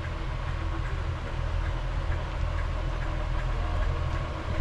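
Class 143 Pacer diemal multiple unit's underfloor diesel engine idling steadily with a low, even drone.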